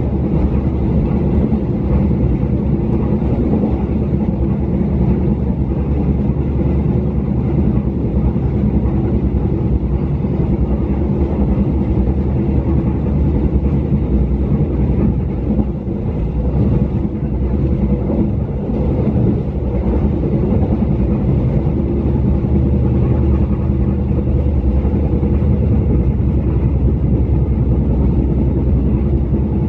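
Jayakarta Premium passenger train running at speed, heard from inside the coach: a steady, loud low rumble of wheels on the rails with a low hum underneath.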